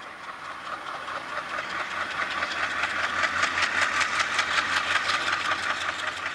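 Train wheels clattering over the rail joints at speed: a rapid, even run of clicks over a steady hiss, growing louder over the first few seconds and easing off near the end.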